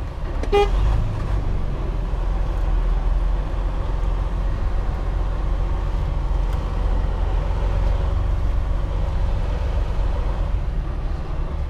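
Semi-truck diesel engine running steadily, heard from inside the cab as the truck pulls away across the parking lot, a low rumble with road and cab noise. A brief tone sounds just after the start.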